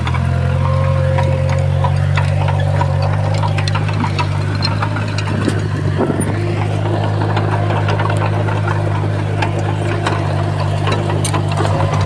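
Small Komatsu bulldozer's diesel engine running steadily at a constant pitch, with scattered short clanks over it.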